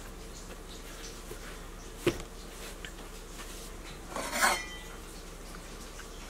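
Quiet kitchen background with a single sharp knock about two seconds in, then a short, ringing clatter of kitchenware being handled a little past the middle.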